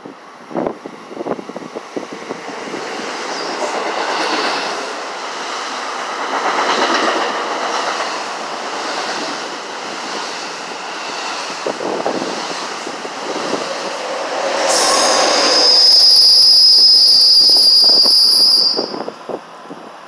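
NJ Transit bi-level push-pull train passing through the station at speed on the near track, its rushing noise swelling and ebbing for about fifteen seconds. Near the end a loud, steady, high-pitched wheel squeal holds for about four seconds, then stops suddenly.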